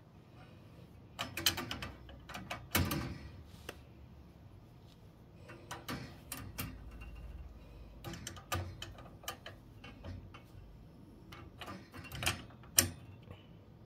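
Irregular light metallic clicks, taps and short rattles from hands fitting a replacement thermocouple at a gas boiler's gas valve, with a sharper click near the end.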